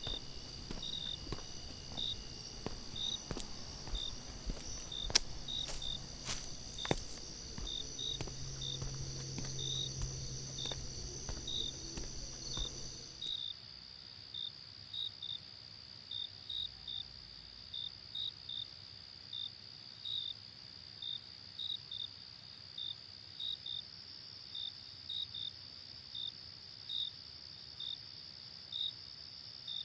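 Crickets chirping in a steady rhythm, about three chirps every two seconds, over a constant high insect drone. For the first part there are also scattered clicks, two louder knocks and a low hum, which all cut off suddenly about halfway through.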